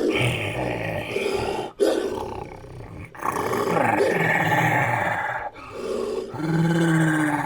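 Made-up creature sound effect: a string of growls and roars edited together, with sharp cuts between calls about two, three and five and a half seconds in, and a longer call falling in pitch near the end.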